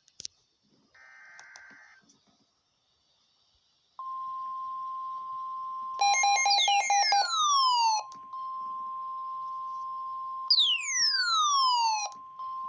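NOAA Weather Radio alert: a brief warbling digital SAME header burst, then the steady 1050 Hz warning alarm tone that signals a warning is about to be read. Twice over the tone come loud falling sweeps, the first preceded by rapid pulsing beeps.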